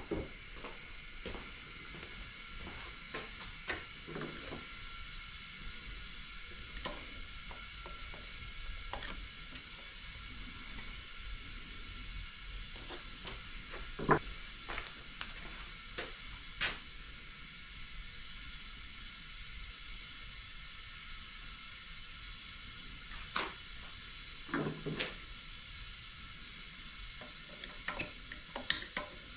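Scattered light clicks and taps of hand tools working on a pancake air compressor's housing during disassembly, over a steady faint hiss.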